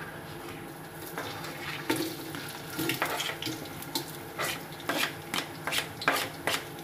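Sliced onions scraped off a plastic cutting board with a knife into hot oil in an aluminium pot: a run of sharp knife clicks and scrapes on the board and pot rim, more frequent towards the end, over a soft steady sizzle.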